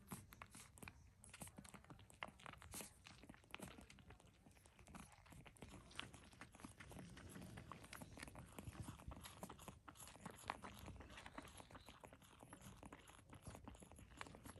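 Young Shiba Inu puppies suckling at their mother: a faint, continuous patter of small wet clicks and smacks.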